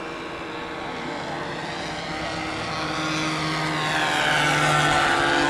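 Twin-engine radio-controlled model seaplane flying past, a steady propeller drone that grows louder as it comes closer and is loudest near the end.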